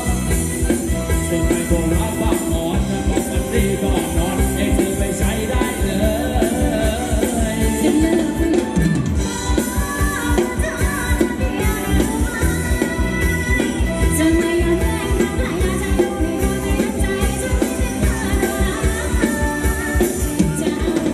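Live Thai ramwong dance band playing, with a steady, fast drum beat running under the melody.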